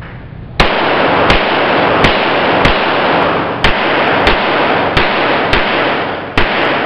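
A pistol fired nine times, about one shot every half second to a second at an uneven pace. Each shot echoes heavily in an indoor range, so a dense wash of reverberation fills the gaps between shots.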